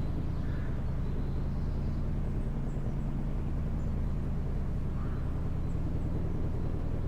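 Steady low engine rumble, as of a vehicle idling, with a few faint high chirps above it.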